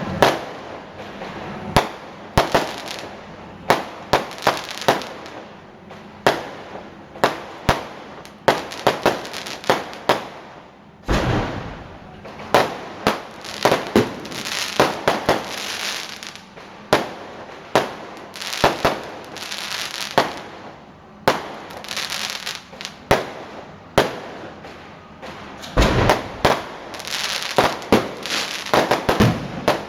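Fireworks going off: a long, irregular run of sharp bangs, many followed by crackling.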